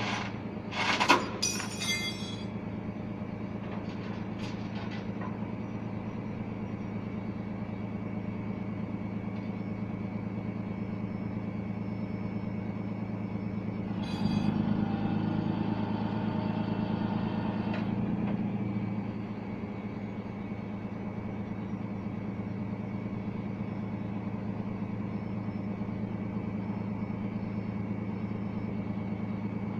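Tow truck's engine running steadily, with a few sharp metallic clanks about a second in. Midway the sound grows louder for about four seconds, with a higher whine over the engine.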